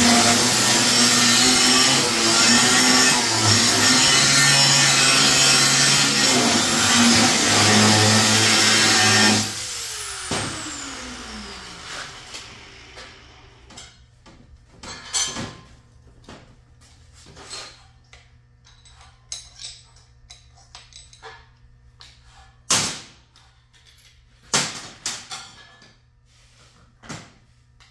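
A power tool cutting diamond plate runs loudly for about nine seconds. It is then switched off and winds down with a falling whine. After that come scattered knocks and clanks of metal being handled over a low steady hum.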